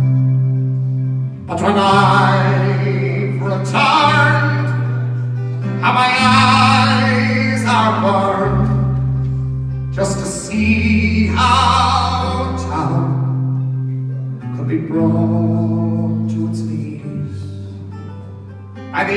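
Live folk band performance: a male voice singing a slow ballad over acoustic guitar and a bass guitar holding long low notes.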